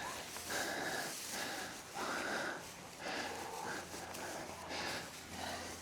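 A person's breathing and sniffing: soft breaths about once a second, with no speech.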